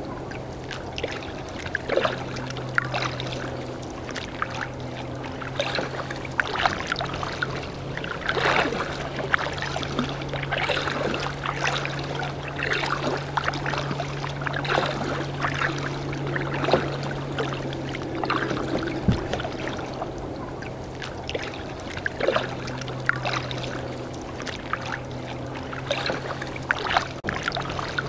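Kayak paddling: paddle blades dipping and water splashing and lapping at the hull in an irregular run of small splashes, about one or two a second.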